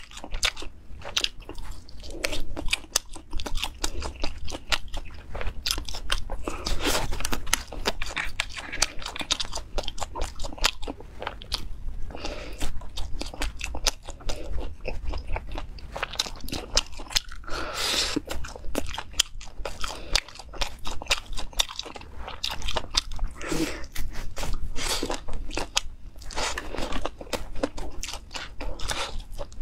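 Close-miked biting and chewing of spicy grilled seafood skewers: a dense, uneven stream of quick clicks from the mouth.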